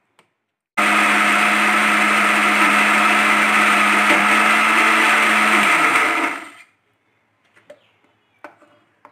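Electric mixer grinder running under load, grinding coconut, soaked dry mango and curd to a paste. The motor starts suddenly about a second in, runs steadily for about five seconds, then is switched off and winds down.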